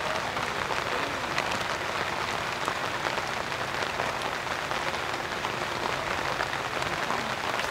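Steady rain falling, a dense even hiss of drops with many small ticks of individual drops.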